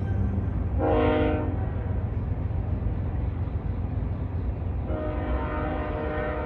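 Diesel freight locomotive's air horn sounding a chord of several notes, a short blast about a second in and a longer one near the end, over the steady low rumble of the passing freight train.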